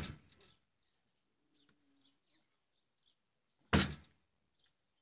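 Mostly quiet with faint bird chirps, then a single sharp thump about three and a half seconds in.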